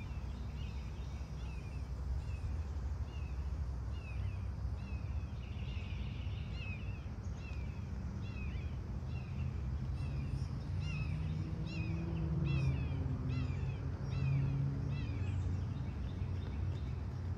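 A bird calling repeatedly, a short down-slurred chirp about twice a second, over a steady low outdoor rumble that swells briefly in the second half.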